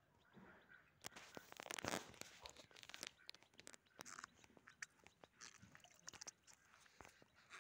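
Faint crackling and light splashing from a plastic bag being handled in shallow pond water while carp spawn is released. The sound is busiest about one to three seconds in, then turns to scattered clicks.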